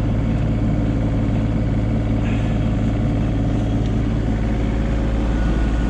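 Komatsu PC16 mini excavator's diesel engine running steadily. A faint, steady high whine joins near the end.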